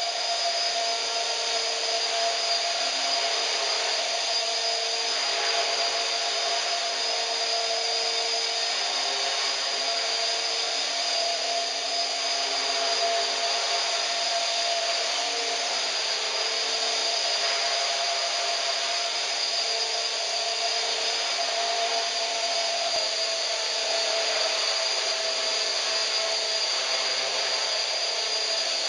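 HK450 electric RC helicopter with a four-blade main rotor head hovering low: a steady whine from the electric motor and drivetrain over the whir of the rotor. The motor runs rough, which the owner puts down to damage from an earlier crash.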